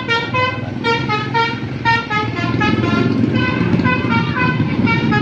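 Tour bus telolet horn: a multi-tone air horn playing a quick melody of short notes, about three or four a second, over engine noise.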